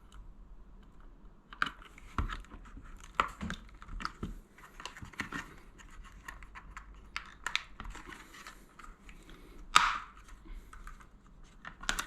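Small plastic clicks and rustling as the wiring connector of a mains Kidde Firex smoke alarm is handled and plugged into the alarm, with one sharper, louder click just under ten seconds in.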